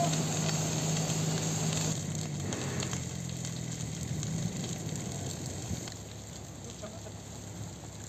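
A forest fire burning with a steady hiss while a fire hose sprays water on it. An engine hums underneath for the first two seconds or so, then fades back.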